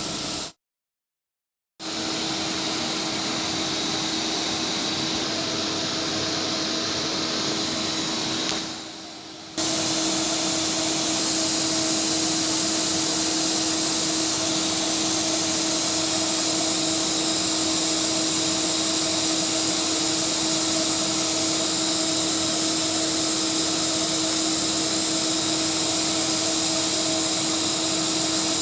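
Flexicam CNC router running steadily: a constant rushing noise with a steady whine. It cuts out to silence for about a second just after the start, then dips briefly around nine seconds in before coming back at full level.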